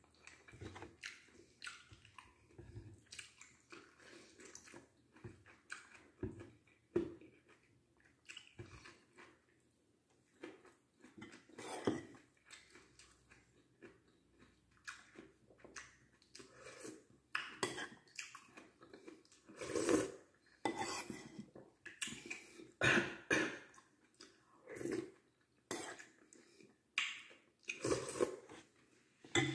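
Close-up eating sounds: a person chewing rice and vegetables in irregular bursts, with clicks of a metal spoon against a plate. The bursts are louder in the second half.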